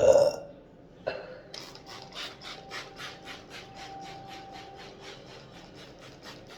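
The tail end of a loud burp right at the start, then a steady run of rhythmic scrubbing strokes on a surface, about four a second, for roughly five seconds.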